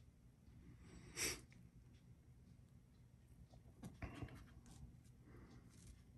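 Near silence, with faint rustling and a few light taps as a chipboard panel is slid into place on adhesive-backed paper about four seconds in. There is one short breathy hiss about a second in.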